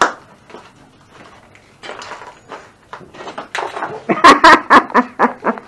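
A sharp knock at the start, then a rapid run of loud smashing blows in the last second and a half: hand tools hitting junk in a smash room.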